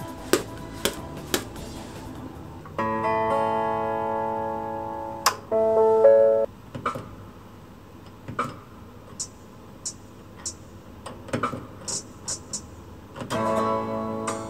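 Strummed guitar-chord tones from a BALMUDA oven being set to preheat at 210 °C: one held chord a few seconds in, a short loud one that cuts off sharply, and another near the end, with scattered light clicks between them.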